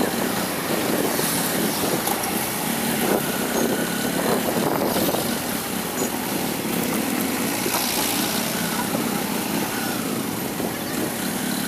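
Two-wheeler traffic heard from a moving vehicle: scooter and motorcycle engines running steadily, mixed with wind and tyre noise.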